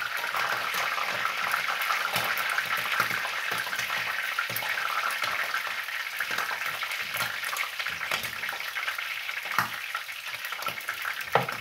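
Pieces of meat sizzling in a frying pan: a steady frying hiss with scattered pops and crackles.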